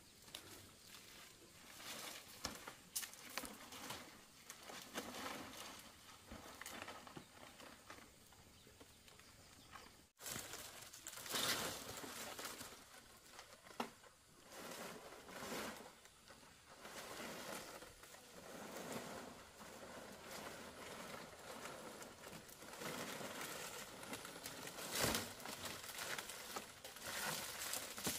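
Palm leaves rustling and crinkling on and off as they are handled and laid over a bamboo roof frame.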